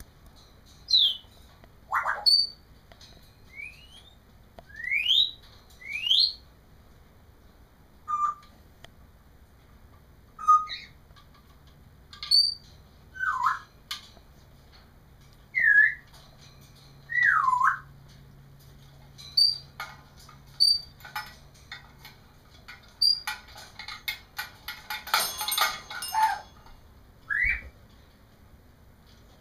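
African grey parrot whistling and chirping: a string of separate short whistles a second or two apart, some rising, some falling, some swooping down and back up. Near the end comes one harsher, noisier call.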